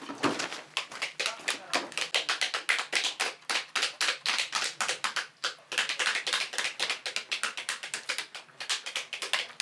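Rapid, irregular tapping and knocking from several people working at once, cutting and knocking open pomegranates with knives over metal basins as the seeds drop in.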